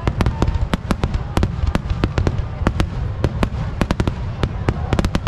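Aerial firework shells bursting in rapid succession: a dense string of sharp bangs, about four a second, over a steady low rumble.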